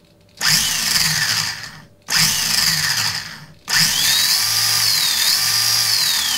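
Stock electric motor of a Kamtec SWB banger RC car running up under throttle in three bursts, the first two each about a second and a half long, the third starting near four seconds in and carrying on. The whine rises and falls in pitch. The mechanical speed controller gives steps of on or off rather than smooth throttle.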